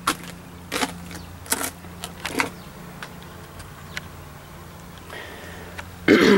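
Handling noise while wiring a car: a few sharp clicks and knocks in the first two and a half seconds, over a steady low hum.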